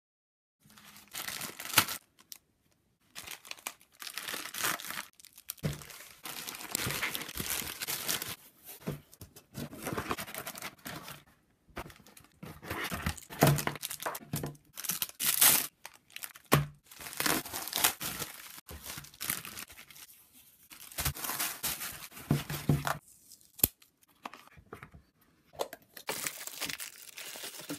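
Grey plastic mailer bags being torn open and crumpled by hand: irregular crinkling and ripping of thin plastic, in spells broken by short pauses.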